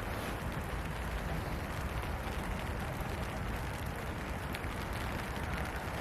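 Steady rain falling: an even hiss with faint scattered drop ticks over a low rumble.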